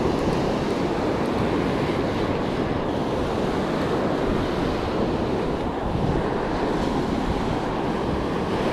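Surf washing onto a sandy beach, a steady rushing noise, with wind buffeting the microphone.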